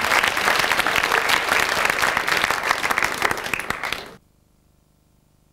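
Theatre audience applauding, dense clapping that cuts off abruptly about four seconds in, leaving near silence with a faint hum.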